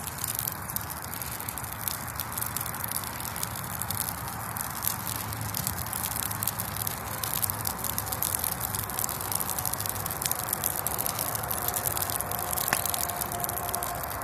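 Bonfire of weeds and horse manure burning, with a steady crackle of many rapid small pops over a hissing rush. A faint thin whistle joins in about ten seconds in.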